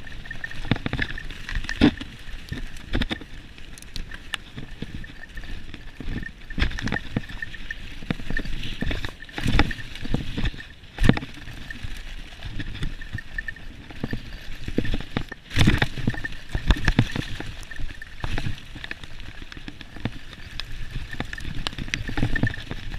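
Mountain bike descending a leaf-covered dirt trail, heard from a camera mounted on the bike: steady rolling and rushing noise with frequent knocks and rattles as the wheels hit bumps.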